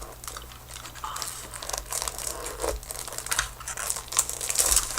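Close-up crinkling and crackling of a crinkly material being handled, in quick irregular crackles.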